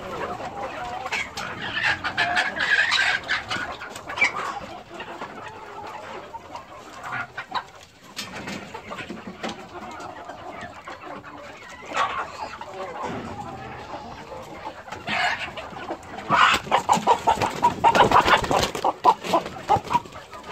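A mixed flock of chickens, junglefowl and bantams, clucking and calling, with a louder run of rapid clucks near the end.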